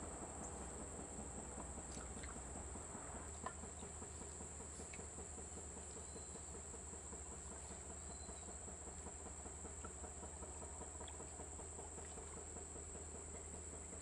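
Steady high-pitched drone of insects, with a few faint clicks and a couple of short chirps over a soft low rumble.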